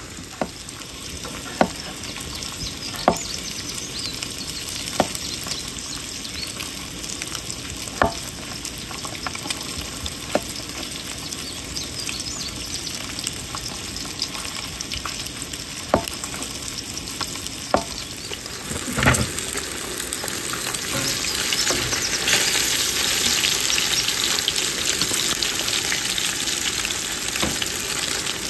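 Breaded crappie fillets sizzling in oil in a skillet on a camp stove, a steady frying hiss that grows louder about two-thirds of the way through. Scattered light clicks sound over it, with one stronger knock just before the frying swells.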